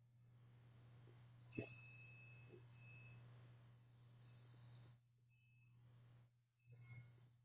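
High, bright chimes ringing in overlapping tones that come and go, over a steady low hum, with a single soft knock about one and a half seconds in.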